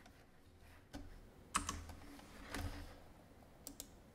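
A few faint clicks from a computer keyboard and mouse, spaced about a second apart, with two quick clicks near the end.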